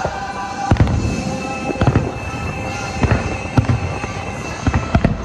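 Aerial fireworks shells bursting: a series of sharp bangs, several coming in close pairs about a second apart, over steady music from the show.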